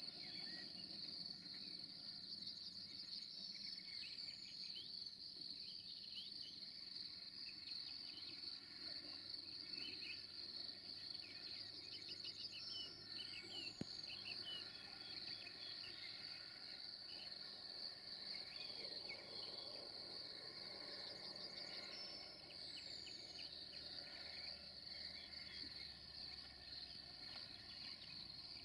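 Faint, continuous high-pitched chirring of crickets, with scattered short chirps over it.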